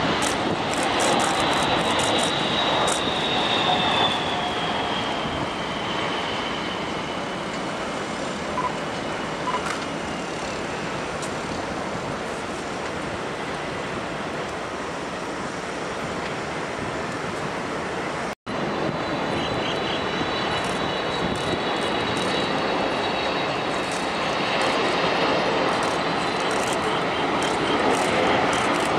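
Jet airliner engines on final approach, low overhead. The Boeing 747-400 freighter's engines give a steady rumble with a high whine that falls in pitch as it passes. After a brief cut, a Boeing 777-300ER's engines come in with a high whine and a rising tone.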